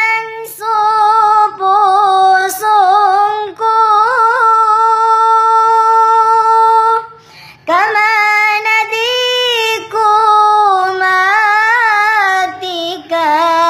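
A solo singer with a high voice sings a slow song in Maguindanaon, holding long notes with vibrato and pausing briefly for breath between phrases.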